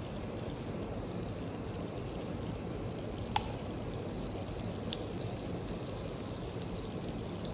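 Margarine melting in a pan over a flame, giving a steady low sizzling hiss, with one faint click about halfway through.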